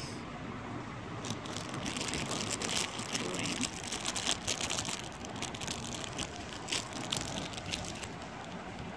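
Jewellery being handled and arranged on a cloth: gold-tone bangles and earrings give a run of light clicks and rustles, busiest in the middle, over a steady hiss.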